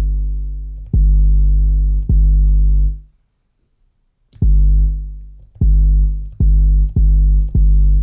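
808 bass sample played from Logic Pro's Quick Sampler, deep hits at one pitch. First comes a long-ringing note, then two long sustained hits. After about a second of silence come five quicker hits that die away faster, as the sample's end has been pulled in to shorten the 808.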